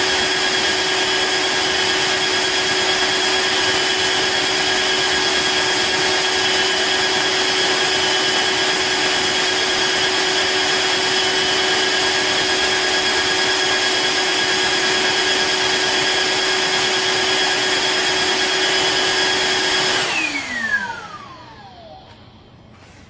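Cordless wet-dry vacuum cleaner motor running steadily with a high whine over a rushing of air. About 20 seconds in it is switched off and the whine falls away as the motor spins down.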